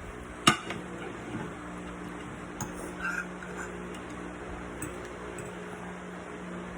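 A sharp clink of cutlery against a plate about half a second in, then a few faint ticks and taps, over a steady low hum.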